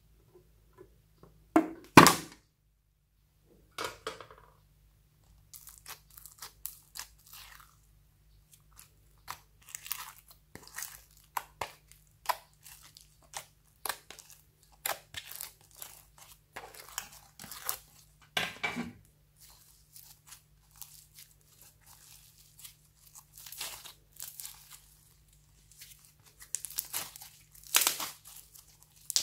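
Floam slime poked, squeezed and stretched by hand, its foam beads crackling in a long run of small, irregular crunches as the slime pulls and tears. About two seconds in, a loud clack as the metal case holding it is opened.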